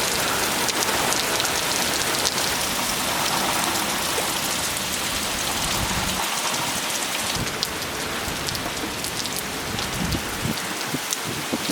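Heavy rain pouring down in a steady hiss, easing slightly about halfway through.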